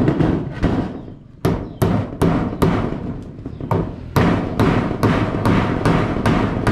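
Hammer blows driving nails while fixing zinc roofing sheets: a few strikes, a short pause about a second in, then a steady run of about three sharp blows a second.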